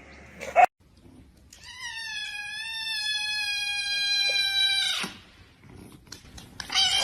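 A single long, drawn-out animal call lasting about three and a half seconds, sagging slightly in pitch. It comes after a short loud sound that cuts off abruptly.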